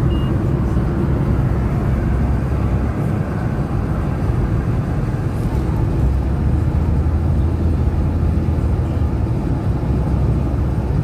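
Steady road and engine noise inside a moving car's cabin at highway speed: a continuous low rumble.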